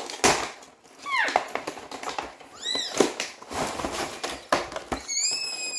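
A cardboard toy box being handled and opened, with rustling and knocks, and three short high squeaks that rise and fall, the longest near the end.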